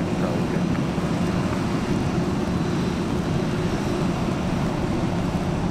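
Heavy rain pouring down together with the steady rumble of an Air Canada Rouge airliner's jet engines at low power, one unbroken even noise.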